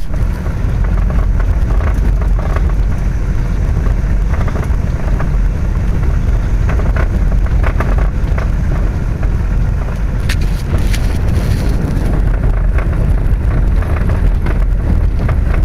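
Steady low rumble of a velomobile rolling along a crushed-gravel trail, heard through a camera fixed to its shell, with scattered crackling ticks from the tyres and shell.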